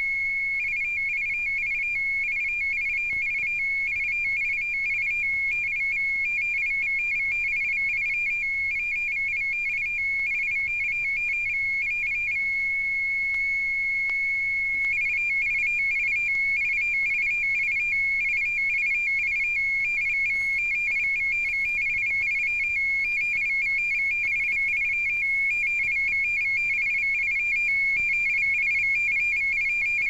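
One channel of a six-channel voice-frequency Morse telegraph signal: a high, steady tone with a slightly higher tone keyed on and off in rapid Morse characters. The keying stops for a few seconds about twelve seconds in, leaving only the steady tone, then resumes.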